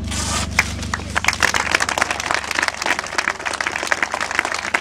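A crowd applauding, a dense patter of many hands clapping that builds up about half a second in and carries on steadily.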